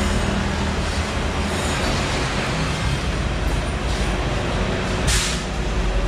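Kawasaki Ninja 400's parallel-twin engine running steadily through a newly fitted M4 full-system exhaust. A short hiss cuts in about five seconds in.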